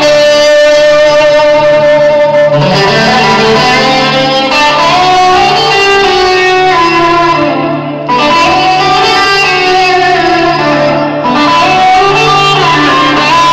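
Loud music played through a new pair of Wet Sounds REV 410 speakers driven by Syn-4 amplifiers, being broken in at about half volume. The sound bounces off the block walls of a large warehouse.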